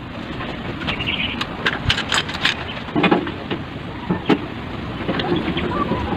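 Scattered light clicks and knocks, as of hand tools or metal parts being handled, over a steady background rumble and hiss.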